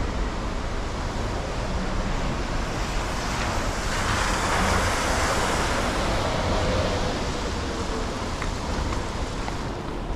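Street traffic noise: a steady wash of passing vehicles with wind rumble on the microphone, one vehicle swelling and fading about halfway through.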